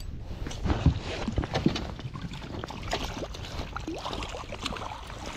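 Irregular knocks, clicks and light splashing as a fish landing net is worked over the side of a small boat and dipped into the water.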